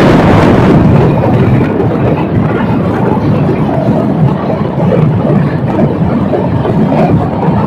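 Passenger train with LHB coaches running at speed through a tunnel, heard from an open coach door: a loud, steady rush of wheel-on-rail noise and wind, boxed in by the close tunnel walls.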